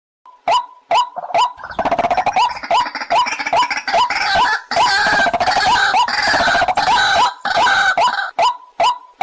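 White-breasted waterhen calling: a short note repeated about twice a second, which swells about two seconds in into a dense, overlapping run of rapid calls, then falls back to the single repeated notes near the end.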